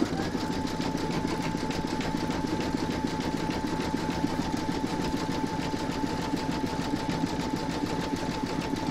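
Embroidery machine zigzag-stitching around the raw edges of an appliqué: a rapid, even needle beat with a steady whine over it.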